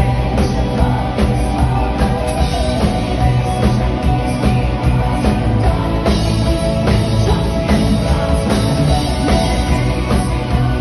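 Live rock band playing loud: electric guitar and keyboards over a steady drum-kit beat.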